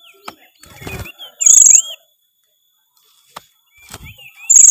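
Oriental magpie-robin (kacer) singing: two loud, very fast, high-pitched rattling trills about three seconds apart, each lasting about half a second, with short slurred whistles around them.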